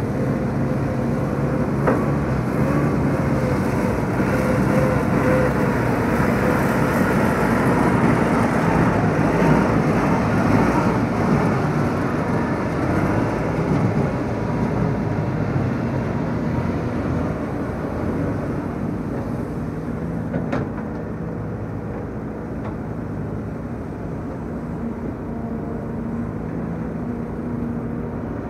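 Diesel engine of an old Sumitomo crawler excavator running under load as the machine digs, swings and dumps soil, with the hydraulics working. A sharp clank comes about two seconds in and another about twenty seconds in.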